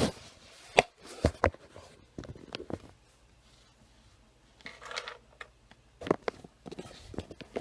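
Irregular clicks and knocks of hands handling computer hardware and peripherals, with a short rustle about five seconds in.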